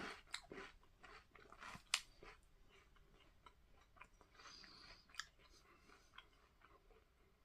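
A person chewing a mouthful of crunchy breakfast cereal: faint, irregular crunches, thick in the first couple of seconds and then thinning out.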